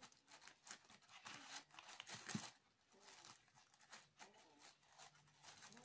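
Very faint, irregular rustling and scratching of jute twine being handled and tied off around a plastic plant pot.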